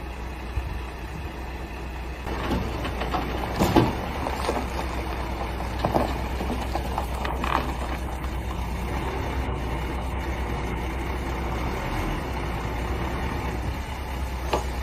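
Heavy truck's diesel engine running with a steady low rumble, with a few short knocks and rattles from about two seconds in.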